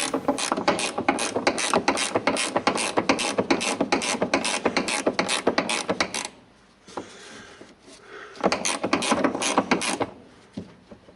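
Hand socket ratchet clicking as a bolt on the fuel tank brace is loosened. There is a long run of quick, even clicks for about six seconds, then, after a short pause, a second shorter run.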